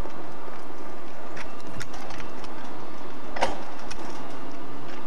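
Hand-swung level-crossing barrier gates being moved and closed, with a few sharp clanks, the loudest about three and a half seconds in, over a steady hiss.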